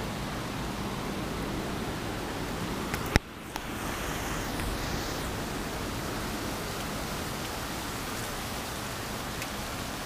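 Heavy rain pouring steadily onto a paved lot, heard as an even hiss. A single sharp click about three seconds in, after which the rain sound briefly drops and returns.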